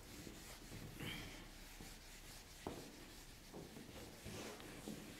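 Faint rubbing of a duster wiping marker writing off a whiteboard, in several soft strokes, with a small click a little over two and a half seconds in.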